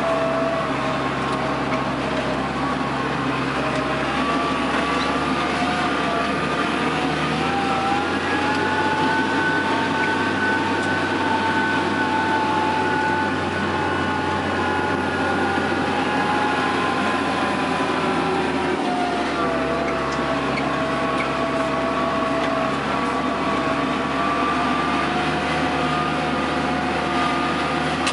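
Case CS 130 tractor engine running steadily under way, heard from inside the cab, with a whine over it. The pitch rises about eight seconds in, holds, and falls back about nineteen seconds in.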